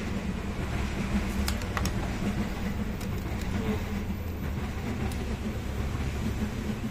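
Steady low background rumble with a faint hum, and a few light clicks of the gas stove's metal valve assembly and gas pipe being handled.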